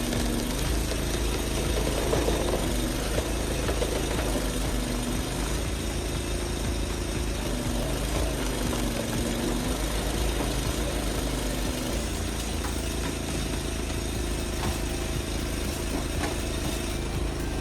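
A heavy machine's engine running, its pitch rising and falling a few times as it is worked, over a steady low rumble.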